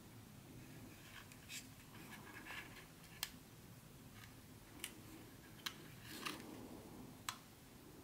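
Faint handling sounds of a plastic HO-scale model diesel locomotive being turned over in gloved hands: soft rustles and four light, sharp plastic clicks, over a low steady room hum.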